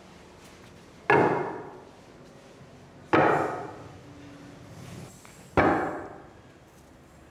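Three sharp knocks about two seconds apart, each ringing out for most of a second in the bare room, as wheel covers are pressed into place on a wooden car's wheels.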